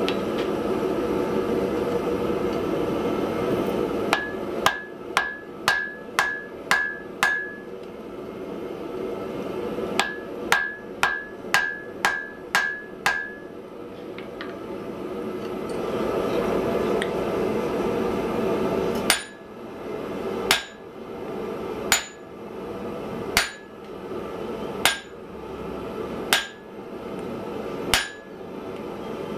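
Hand hammer forging a glowing block of wrought iron on an anvil. Two quick runs of about seven blows each, every blow with a short ringing note, are followed by slower single blows about every second and a half.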